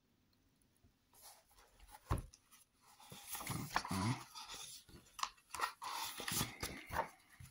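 Glossy pages of a large hardcover book being handled and turned: paper rustling and swishing in irregular strokes, with a soft thump about two seconds in as the book is opened out.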